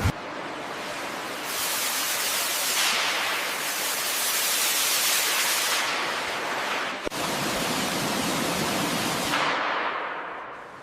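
Steady hissing noise in several stretches that change abruptly, about one and a half, seven and nine seconds in.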